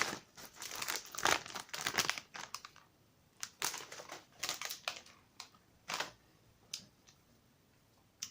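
Crisp packet crinkling as it is handled, in irregular bursts of sharp crackles that thin out to a few isolated ones near the end.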